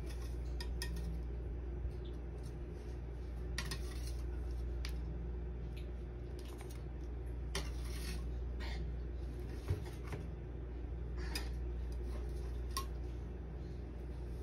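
A metal spatula scraping and clicking every second or two as baked cookies are lifted and set down on a plastic tray, over a steady low hum.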